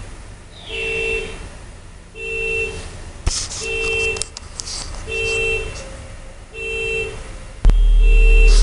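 Car alarm blaring the car's horn in a steady loop: short honks, one about every one and a half seconds, six in all. A loud low rumble sets in suddenly near the end and is the loudest thing there.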